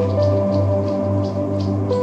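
Background music: held melody notes changing pitch every half second or so over a steady low drone, with a shaker ticking in a regular rhythm.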